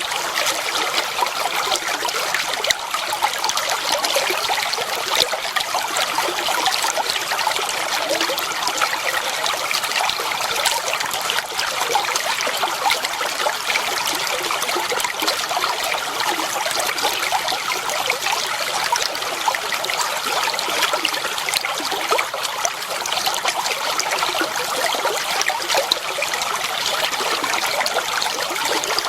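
Clear water flowing and trickling steadily, like a shallow stream over stones, with a dense patter of small splashes and no lulls.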